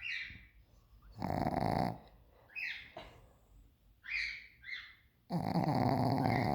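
A woman snoring: two long, loud snores about four seconds apart, the second one longer, with a few short, higher-pitched sounds in between.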